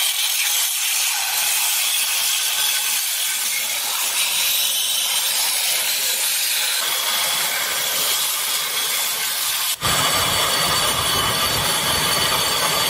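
Power tool grinding a forged steel blade: a steady, harsh rasping hiss. About ten seconds in it cuts abruptly to a heavier, fuller grinding sound.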